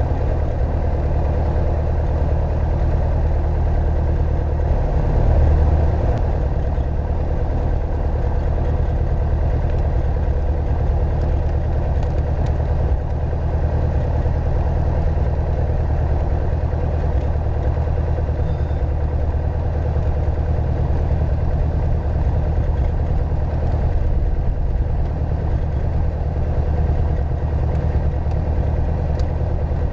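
Piper Archer II's four-cylinder Lycoming O-360 engine and propeller running steadily at low power while taxiing, a deep even drone heard from inside the cockpit, swelling briefly about five seconds in.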